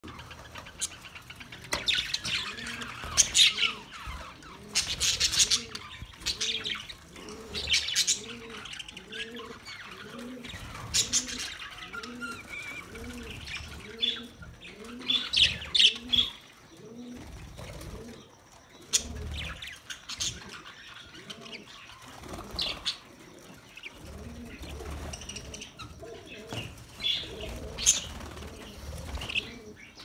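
A flock of budgerigars chirping and chattering in irregular loud bursts, with wing flutters as birds take off. Under it, a low call repeats steadily, nearly twice a second, through the first two-thirds.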